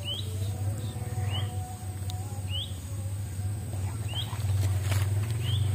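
A bird repeating a short rising chirp, about five times at roughly one-and-a-quarter-second intervals, over a steady low hum.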